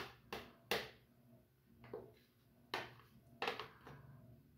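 Plastic blender jar and pot being handled: about half a dozen sharp taps and knocks, unevenly spaced, three near the start and a few more about three seconds in, as garlic paste is worked out of the jar into the pot.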